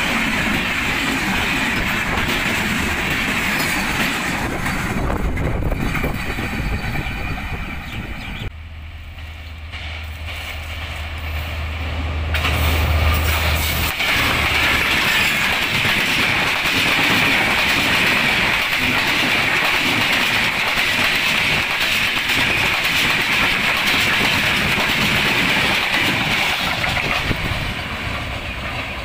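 Diesel-hauled passenger train passing close by, its wheels clattering over the rails. About 8.5 s in the sound drops suddenly to a steady low diesel locomotive engine hum that grows louder. A little after 13 s the loud wheel-and-rail noise of a passing train returns.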